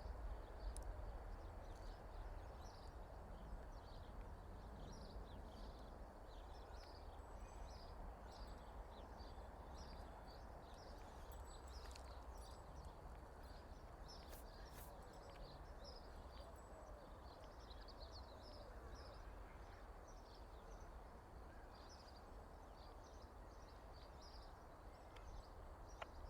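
Faint outdoor birdsong: many short, quick chirps throughout, over a steady low rumble.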